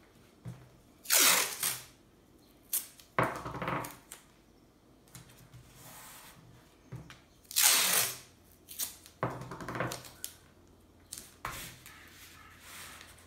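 Masking tape being pulled off the roll and torn, then pressed and smoothed onto a card picture mount, in about five short rasps, the loudest about a second in and near eight seconds, with light rustling of the card between them.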